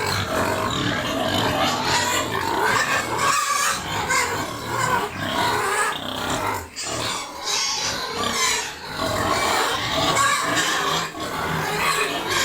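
A group of local-breed pigs squealing and grunting without a break at feeding time, as feed is given out.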